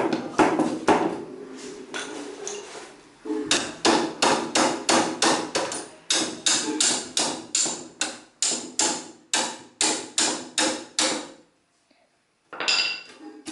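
Hammer blows on the keyboard stand's iron slide rail and wooden board, knocking the rail loose. They come in a steady run of about three sharp knocks a second and stop about 11 seconds in. A brief clatter follows near the end.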